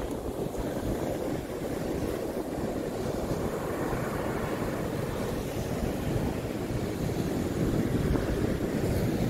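North Sea surf breaking and washing up a sandy beach, with wind buffeting the microphone as a steady low rumble.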